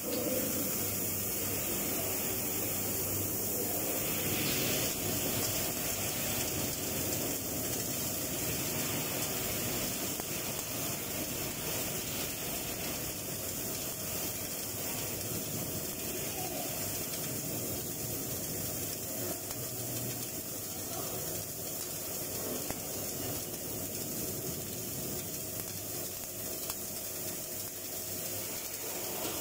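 Electric arc welding on an overhead butt joint in steel plate: the arc runs as a steady hiss.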